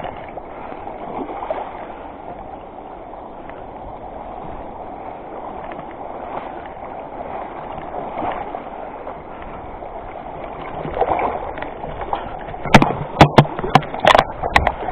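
Shallow river current rushing steadily over stones. Near the end comes a run of loud, sharp splashes at the surface as the big hooked trout is brought to the net.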